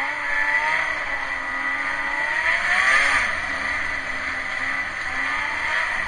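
Snowmobile engine running under throttle while riding, its pitch rising twice and easing off, loudest about three seconds in, heard through a waterproof camera case.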